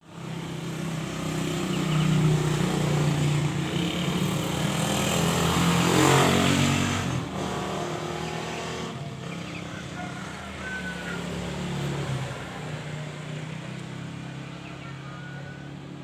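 A motor vehicle's engine running, swelling as it passes close by, loudest about six seconds in, then easing off to a steady hum. A few faint short bird chirps come through in the second half.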